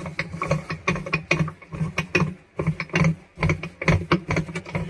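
Bottle jack being pumped under a washer drum to press the tub off its shaft: a quick, irregular run of metal clicks and knocks, several a second.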